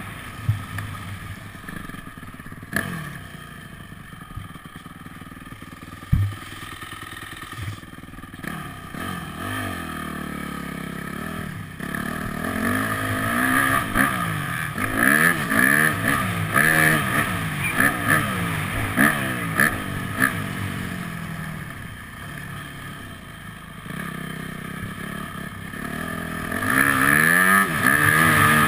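Yamaha motocross bike's engine heard from on board while being ridden on a dirt track. It is quieter for the first stretch with a few sharp knocks, then from about halfway revs up and down again and again through the gears, loudest near the end.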